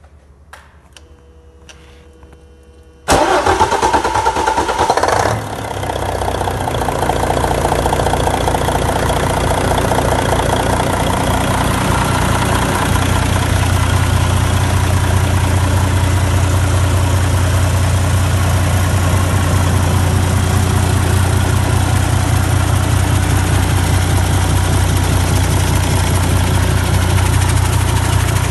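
Doosan DV11 inline-six turbodiesel on a test stand started from cold: about three seconds in the starter cranks it for about two seconds, it fires and settles into a steady idle.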